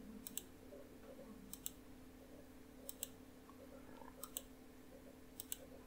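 Computer mouse button clicked five times at an even pace, about once every 1.3 seconds, each click a quick press-and-release pair, over a faint steady hum.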